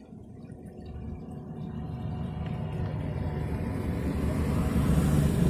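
A motor vehicle approaching along the road, its engine and tyre noise growing steadily louder.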